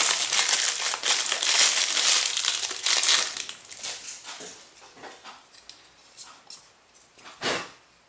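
Clear plastic parts bag crinkling as it is handled and opened: dense crinkling for about the first three seconds, then scattered crackles, with one louder rustle near the end.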